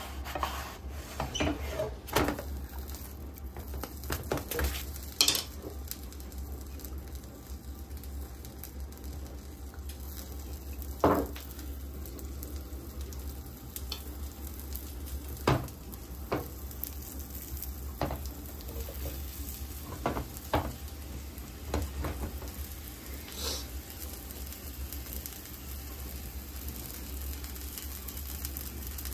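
Gözleme frying in a nonstick pan: a quiet sizzle, broken every few seconds by the click and knock of a wooden spatula against the pan, over a steady low hum.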